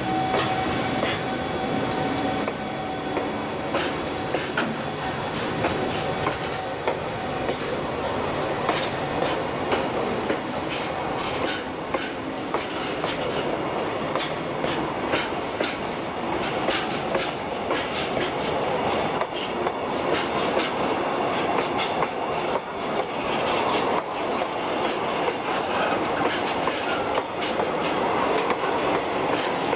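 JR Freight container wagons (Koki flat cars) rolling past close by, their wheels clicking over the rail joints with a continuous rumble. A steady whine dies away about seven seconds in.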